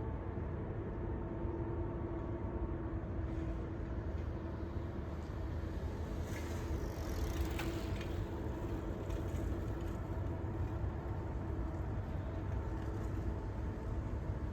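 Steady low rumble of vehicle noise with a constant hum, swelling briefly with a passing hiss about halfway through.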